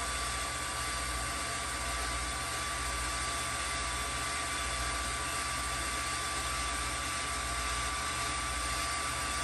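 A new bed-lift linear actuator's electric motor and gearbox running steadily as it extends under load, a constant whir with a thin steady whine.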